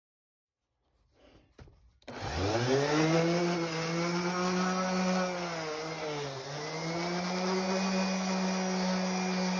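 DeWalt random orbit sander switched on about two seconds in, its motor spinning up in pitch to a steady hum as it sands a carved, painted wooden sign; the pitch sags briefly about six seconds in, then recovers. A few faint knocks come just before it starts.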